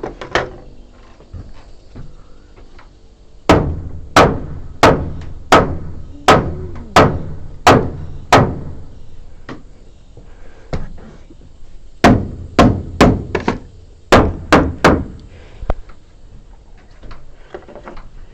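Hammer striking wood in two runs of steady blows: about eight evenly spaced strikes, a pause of a few seconds, then about seven quicker ones.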